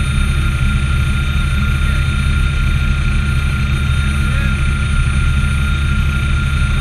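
Bell 206A helicopter's Allison 250 turbine engine and rotor running steadily on the ground, heard inside the cabin: a heavy low rumble under a steady high turbine whine.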